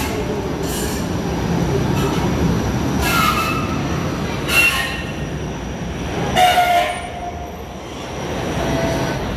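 Toronto TTC Flexity Outlook streetcar rolling slowly past along the platform: a steady low rumble, with three short squeals from its steel wheels on the rails, the loudest past the middle.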